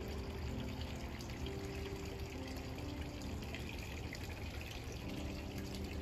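Soft background music with long held notes over a steady splash of running water.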